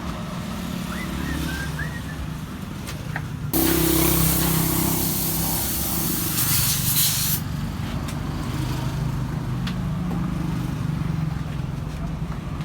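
A compressed-air paint spray gun gives one long hiss of about four seconds, starting suddenly a few seconds in and cutting off. A steady low motor hum runs underneath.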